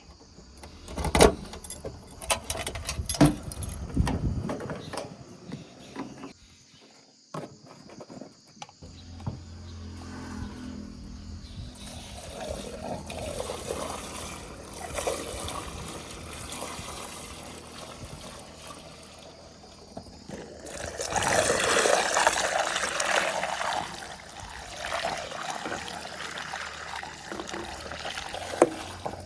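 JCB 3DX backhoe loader at work: a diesel engine running with a low steady hum, scattered clanks and knocks in the first few seconds, and a louder rushing noise for a few seconds about two-thirds of the way through.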